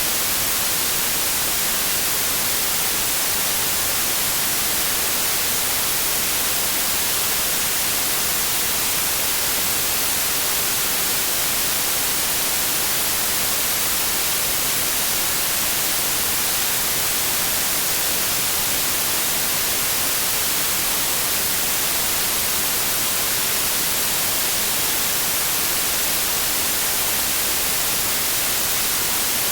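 Steady synthetic white noise: an even, unchanging hiss, brightest in the treble.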